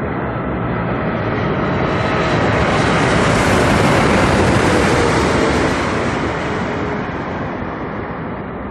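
Boeing 747 jet on landing approach passing over, its engine noise swelling to a peak about four seconds in and then fading.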